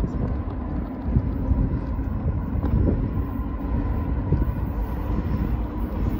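Wind buffeting the microphone over the low, steady rumble of an approaching CSX freight train, its EMD SD70MAC diesel locomotive leading, still some way off.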